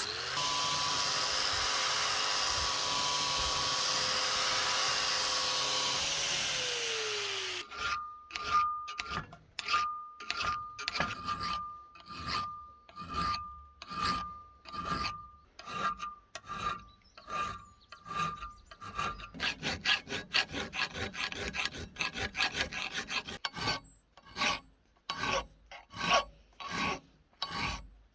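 A power tool runs steadily, then winds down with a falling pitch about seven seconds in. Regular hand-filing strokes follow, a little over one a second, with a faint ringing tone on the earlier strokes.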